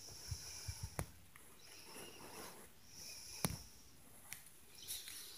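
Faint footfall thumps coming through the ceiling from an upstairs apartment: several dull low thumps in the first second and a sharper knock about three and a half seconds in, with soft breathy hissing between them.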